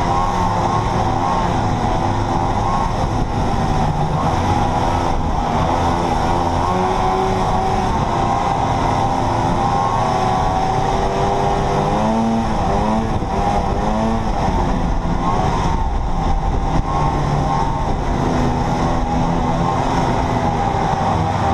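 Vintage Mercury Hurricane Mark II snowmobile's two-stroke engine running steadily under way, its pitch rising and falling with the throttle and swooping up and down a few times about halfway through.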